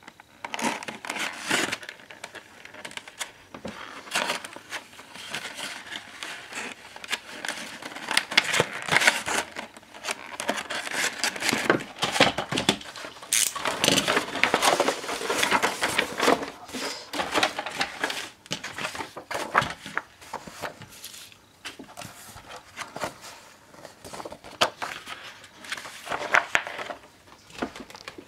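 Packaging being handled and opened: a clear plastic blister tray crinkling and crackling, and a cardboard box being opened, with irregular rustles and clicks throughout.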